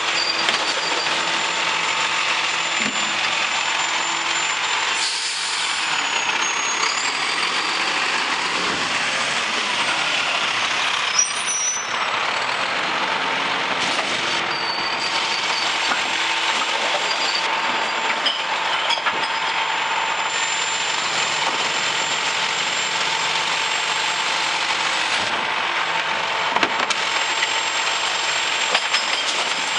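Mack LEU garbage truck with a McNeilus rear-loader body, heard at the hopper: a steady mechanical drone with a thin high whine, and a few knocks near the middle as recyclables fill the hopper.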